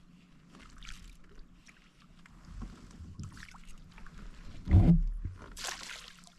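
A hooked fish being landed beside a kayak: scattered small splashes, then a loud hollow thump against the plastic hull about three-quarters of the way through, followed at once by a splash as the fish goes into the net.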